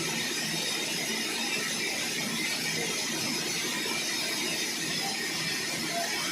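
Sawmill saw cutting through a very large log: a steady, even machine noise with no breaks.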